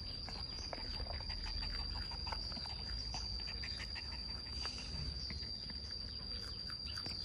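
Outdoor ambience: a steady high-pitched insect drone, with faint scattered chirps and small clicks.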